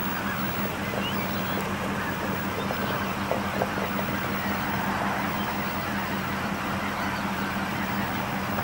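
A steady low engine hum, like an idling vehicle, under an even rushing noise that does not change; no distinct goose calls stand out.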